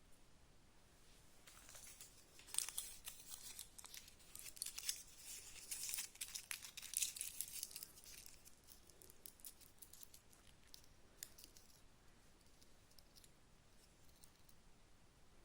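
Crinkling, tearing handling noise, dense for several seconds and then thinning to a few faint clicks.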